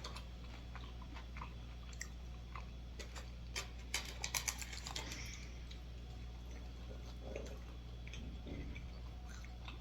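Close-up chewing and soft mouth clicks of someone eating, with a busier run of crisp clicks about four to five seconds in, over a low steady electrical hum.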